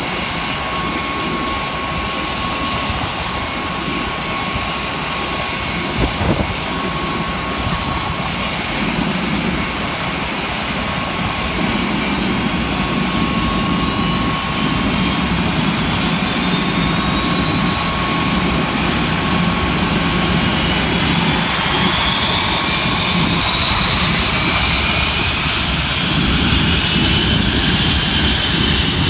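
Panavia Tornado GR4's RB199 turbofan engines running with a steady whine, joined over the second half by a whine rising steadily in pitch as an engine spools up. A short knock about six seconds in.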